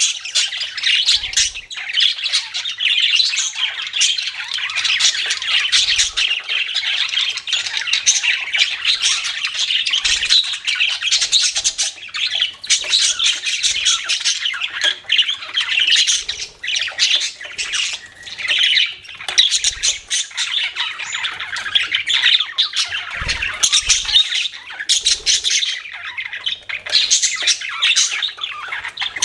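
A flock of budgerigars chirping and chattering without a break, many rapid squawky calls overlapping.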